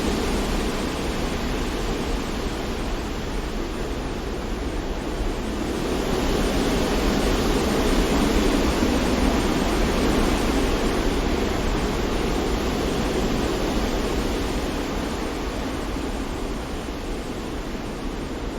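Steady rushing noise of wind and sea surf, swelling a little about six seconds in and easing toward the end.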